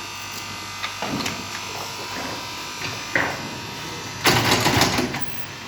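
Corali M50s wooden crate-making machine running with a steady hum and several short clatters, then a louder, harsher noisy burst about four seconds in.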